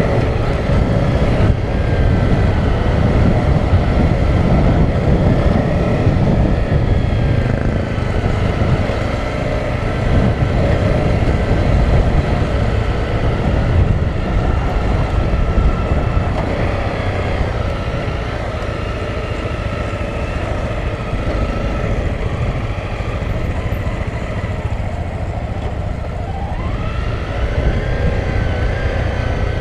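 Honda CRF250L single-cylinder dual-sport motorcycle running at riding speed, heard from a helmet-mounted camera with heavy wind rumble on the microphone. The engine pitch rises and falls with the throttle, climbing near the end.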